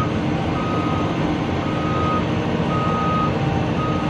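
CAT 340 excavator's travel alarm beeping, a single steady tone about once a second with each beep roughly half a second long, over the steady low run of the machine's diesel engine, as the tracks are moved.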